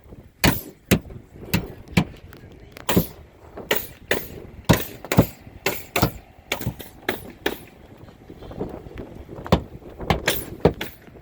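Irregular sharp knocks and thumps, about two a second, over a low background rumble.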